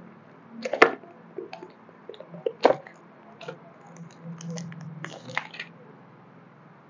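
Unboxing handling noise from a smartphone's cardboard box and its plastic sleeve. Sharp clicks and knocks come about a second in and again near three seconds, then a run of crackly plastic crinkling from about four to five and a half seconds as the phone is slipped out of its sleeve.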